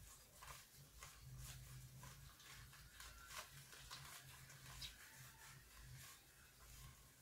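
Faint crinkling and rustling of a black plastic nursery bag handled around a tree's root ball, in short irregular crackles.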